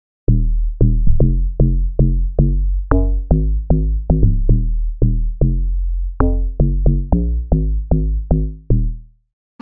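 Amapiano log drum bassline from an FM synth patch (FL Studio's DX10): a run of short pitched bass hits, about two to three a second, each dying away quickly over a deep sub-bass, moving up and down in pitch. The pattern stops a little before the end.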